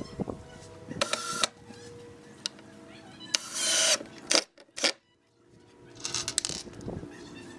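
Cordless drill driving a wood screw into a pine rail, its motor whining in short bursts a few seconds apart.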